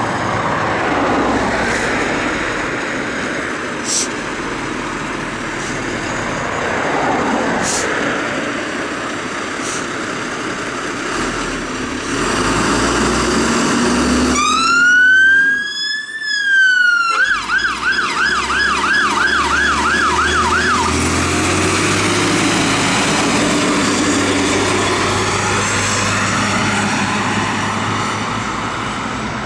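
UK fire engine's diesel engine running as it pulls out and turns onto the road. About halfway through its siren starts with one rising-and-falling wail, then switches to a fast yelp for a few seconds, loudest here, before the engine noise carries on as it drives away.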